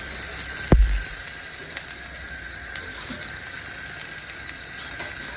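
Chopped ginger, garlic and onion sizzling in a little hot oil in a frying pan: a steady hiss. A heavy thump comes about a second in, and a few light clicks follow.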